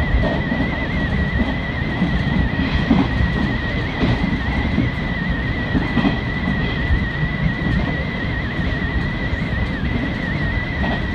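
Hanshin Main Line electric train running at speed, heard from inside the cab: a steady rumble of wheels on rail with a continuous high whine that wavers slightly, and a few short knocks.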